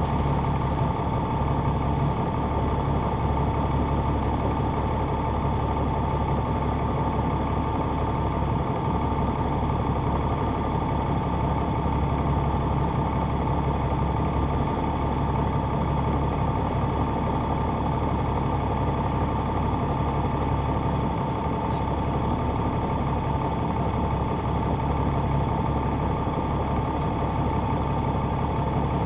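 Caterpillar C9 diesel engine of a 2004 Neoplan AN459 articulated bus running steadily, heard inside the cabin from the rear seats. A steady high whine sits over the engine.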